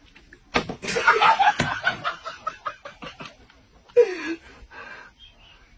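A sharp smack about half a second in, then men laughing, with a loud cry falling in pitch at about four seconds.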